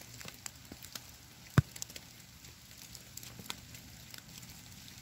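Wet snowfall pattering on a boulder and the leaf litter around it: a steady hiss with scattered small ticks, and one louder thump about a second and a half in.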